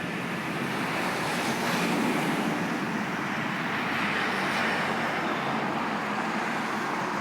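Steady street traffic noise, a constant hiss of passing cars that swells slightly about two seconds in.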